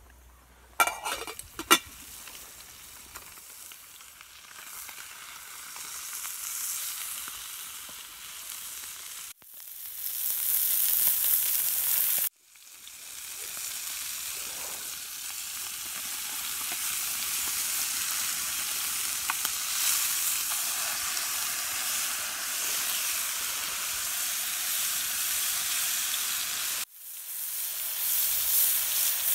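Steak and cherry tomatoes sizzling in a frying pan over a wood-fired camp stove, the sizzle building up and staying loud. A couple of sharp knocks come in the first two seconds, and the sizzle drops out briefly a few times.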